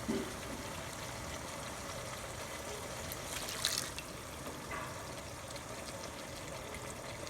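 Strained chicken stock (yakhni) being poured into the cooking pot, a steady trickling pour, with a short clink about three and a half seconds in.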